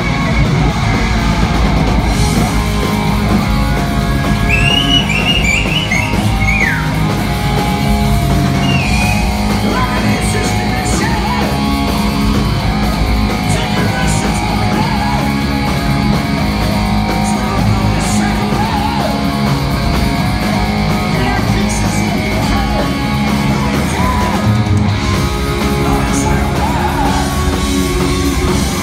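Heavy metal band playing loud live: electric guitars, bass and drums through the PA.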